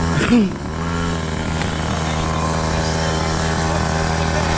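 A steady, unchanging motor hum, with a brief falling squeal or cry about a third of a second in that is the loudest moment.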